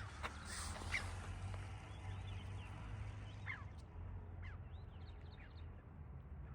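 Birds calling: a scatter of short chirps that bend up and down in pitch, over a steady low rumble.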